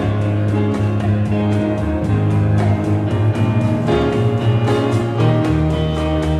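Instrumental music with a steady beat, led by guitar.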